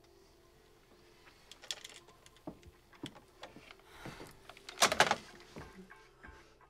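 Scattered clicks, taps and rustles of a person moving about and handling things, with one louder rustling burst about five seconds in.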